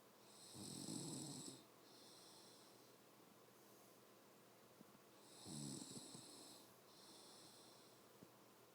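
A woman snoring in her sleep: two low snores about five seconds apart, each followed by a softer, hissy breath.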